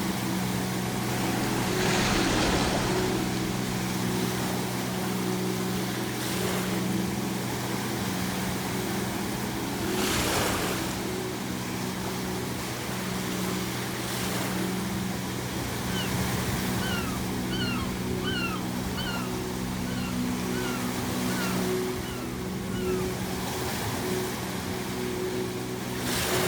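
Sea waves breaking and washing on the shore, with surges about two seconds and ten seconds in. Gulls give a run of about ten short, falling calls in the second half. A steady low droning hum runs underneath.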